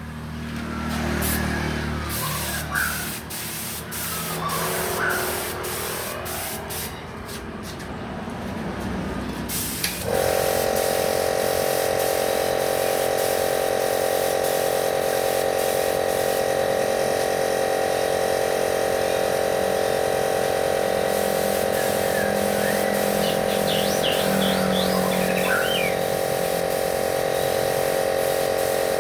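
Varnish spray-painting rig: hissing and clicking at first, then about ten seconds in a loud, steady machine hum with hiss starts abruptly and keeps going, typical of an air compressor feeding a spray gun. A few bird chirps sound over it near the end.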